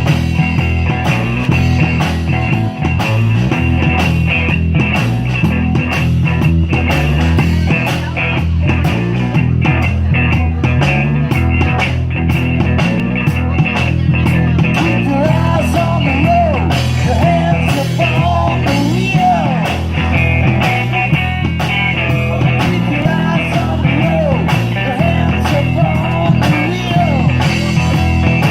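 A live band plays a rock number: drums keep a steady beat under a bass line and guitar. About halfway through, a lead melody comes in with bending, wavering notes.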